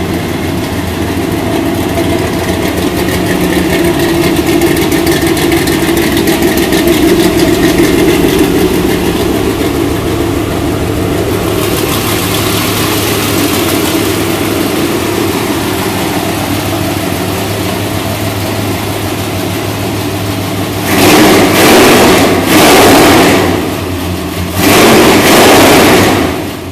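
The 700-horsepower engine of a custom coyote-hunting truck running at a steady, loud idle, then revved in several sharp throttle blips near the end.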